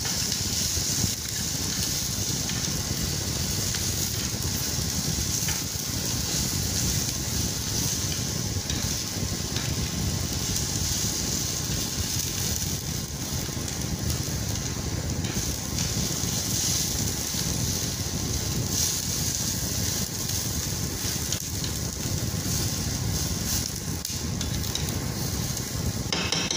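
Potato chips frying in oil with sliced onion and garlic in a flat pan, sizzling steadily, with the occasional light scrape of a spatula turning them.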